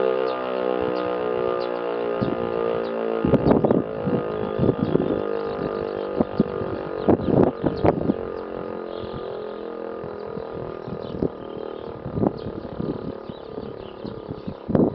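Civil defence siren sounding a test alarm, one held tone that sinks slowly in pitch as it winds down. Irregular sharp knocks sound over it.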